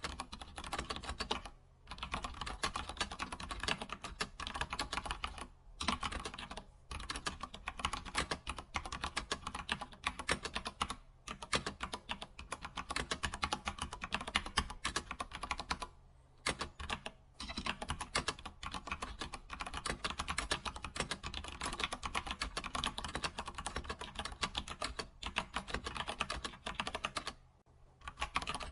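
Computer keyboard being typed on steadily: fast runs of key clicks broken every few seconds by brief pauses.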